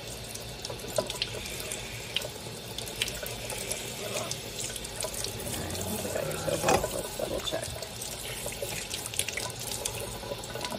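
Kitchen faucet running, its water splashing over a newborn puppy being rinsed at the sink, with small scattered splashes and one brief louder thump about two-thirds of the way through.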